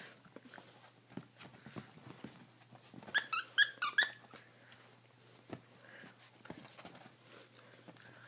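Small dog playing with a fabric dinosaur toy: a quick run of short, high-pitched squeaks about three seconds in, with soft rustling and scuffing on the couch around it.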